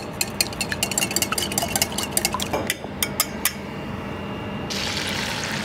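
A wire whisk beats eggs in a glass bowl, making a fast run of clinks against the glass. After a short pause, a steady sizzling hiss starts near the end as the beaten eggs go into a hot frying pan.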